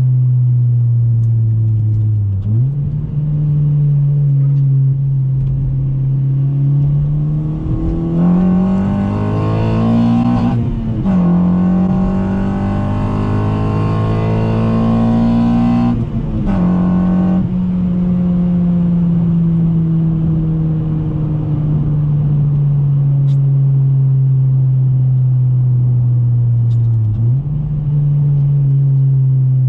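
2014 Honda Civic Si's four-cylinder engine running through an Invidia N1 exhaust and K-Tuned short-ram intake while driving. Revs rise twice under acceleration, each rise cut by a quick drop in pitch as the car shifts up, about 11 and 16 seconds in. After that the engine settles into a slowly falling cruise, with brief dips in revs a few seconds in and near the end.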